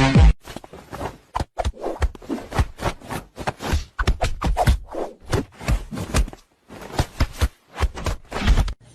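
Irregular series of sharp knocks, taps and scraping, some in quick clusters and with short pauses between.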